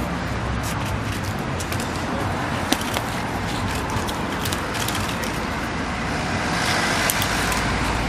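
Street traffic noise: a steady rush of passing vehicles with scattered small clicks, growing slightly louder near the end.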